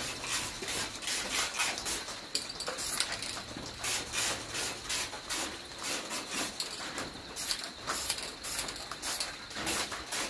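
Quick, irregular rubbing strokes, several a second, on the wet painted steel of a truck cab as fresh fake-patina paint is wiped and washed back to show the colour beneath.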